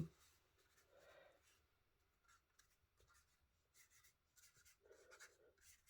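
Near silence with faint, scratchy strokes of ink being rubbed onto card: a few about a second in and a cluster more near the end.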